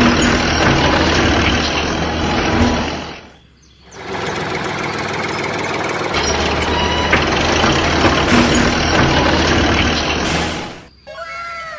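Heavy truck-like engine running loudly, cutting out for a moment about three and a half seconds in and then starting again, with two short bursts of hissing in the second half.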